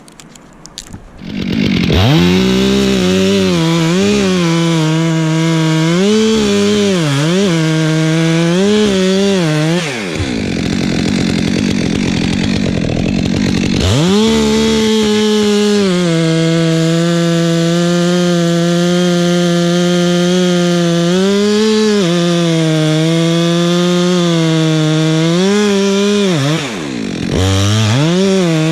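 Two-stroke chainsaw revving up about a second in, then running at full throttle through wood, its pitch dipping and recovering under load. It eases off for a few seconds about a third of the way through and briefly again near the end, then revs back up.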